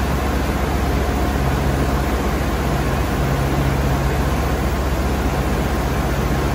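SNK Nissin BP130/3.0 CNC horizontal boring mill rotating its pallet table (B-axis), giving a steady low hum under an even hiss.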